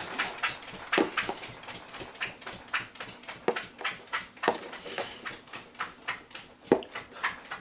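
A Labrador retriever moving about close by, heard as a run of irregular light clicks and taps.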